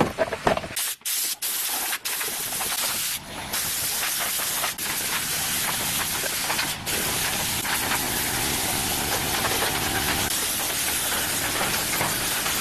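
A steady, loud spraying hiss that stops and restarts briefly several times in the first few seconds, then runs on evenly.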